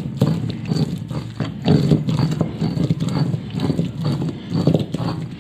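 Cylindrical stone roller grinding a wet masala paste on a flat grinding stone, rolled back and forth in repeated rough, scraping strokes that surge and ease about once a second.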